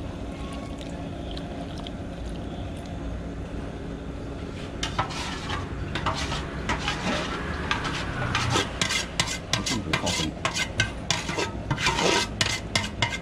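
Almond milk being poured into a large aluminium pot of boiling water. From about five seconds in, a long-handled utensil stirs the pot, clicking and scraping against its metal sides, more and more often toward the end.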